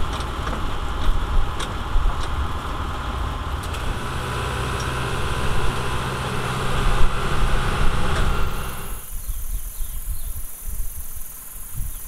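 Safari truck engine running as it drives along a dirt road, with road and wind noise heard from inside the vehicle. About nine seconds in, this cuts off suddenly to a quieter low rumble with a steady high hiss.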